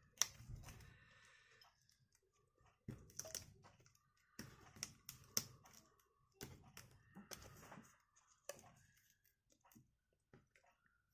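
Faint scraping, crackling and clicking of a plastic pry tool being worked through the adhesive under a tablet's broken touch glass, in a string of short bursts that thin out to light ticks near the end.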